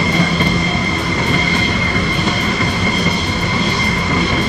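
USAF Thunderbirds F-16 fighter jets idling on the flight line: a loud, steady jet whine with a high, unwavering tone over a low rumble.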